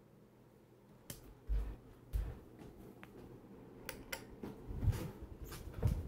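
Hunter Original ceiling fan with its oil-bath motor running: a steady low hum, with scattered sharp clicks and a few low thumps about a second and a half, two, five and six seconds in.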